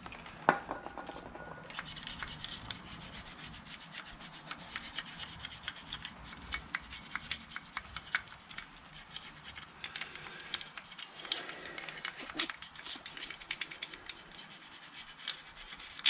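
Old toothbrush scrubbing a motorcycle's front brake caliper and pistons: fast, irregular scratching of bristles on metal as old brake dust is cleaned off, with one sharp knock about half a second in.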